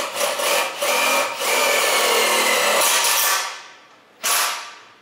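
Cordless power driver driving a 2.5-inch self-drilling screw into a galvanized steel C-channel. The tool starts in short bursts, then runs steadily for about two seconds as the screw drills through the steel, winds down, and gives one more short burst about four seconds in.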